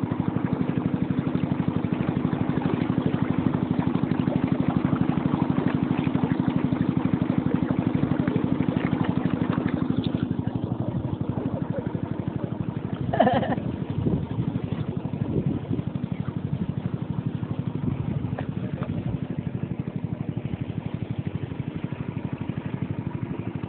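Small boat engine running steadily as the boat travels up a small river, easing slightly after about ten seconds. A short call from a person cuts in about halfway through.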